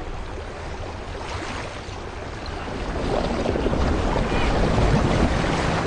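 Film sound effects of rushing water with a deep rumble, swelling louder in the second half and cutting off abruptly at the end.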